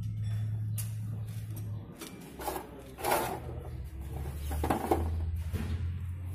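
Metal clatter and knocks as the piston-and-cylinder block of a hydraulic PTO pump is handled and fitted into its housing, in two short bursts about three and five seconds in, over a steady low hum that fades for a couple of seconds in the middle.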